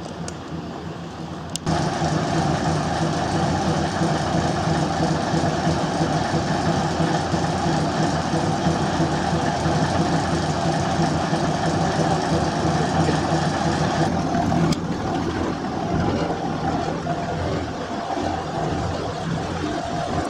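Diesel engine of a preserved railway vehicle idling steadily, a loud even drone that starts abruptly about a second and a half in and grows slightly quieter and less even near the end.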